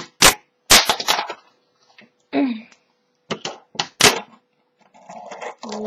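Sharp clacks of a fingerboard popping and landing, a few in quick succession in the first second or so and about four more around three to four seconds in.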